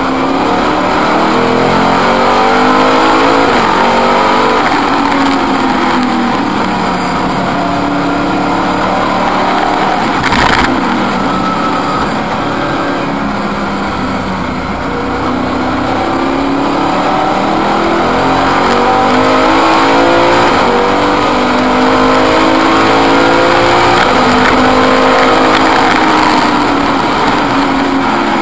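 BMW V8 GTR race car's V8 engine heard from inside the cockpit, revving up and dropping back again and again as it is driven hard through the gears. There is one sharp knock about ten seconds in.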